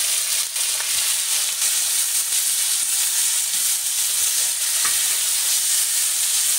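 Crushed onions and dried red chillies sizzling in hot oil in a kadhai, stirred with a perforated steel spoon: a steady frying hiss with a few light scrapes and taps of the spoon against the pan.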